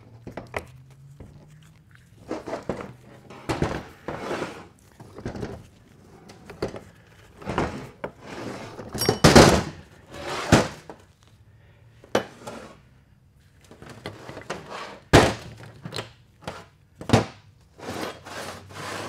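Transfer case internals being taken apart by hand: the steel shafts, gears and drive chain clunking and clattering against the aluminium case and a steel workbench in a string of irregular knocks, loudest about halfway through, with a few sharp clanks near the end.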